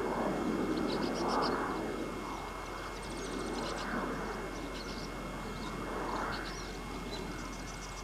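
Distant engine noise swelling and fading in slow waves, with faint, high bird chirps in short quick runs over the top.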